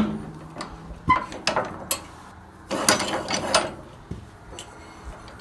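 Sawmill log clamp being set and tightened against a log: scattered metal knocks, then a run of rapid metal clicks about three seconds in.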